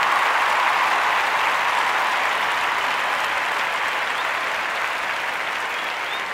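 Applause from a crowd, steady and slowly fading.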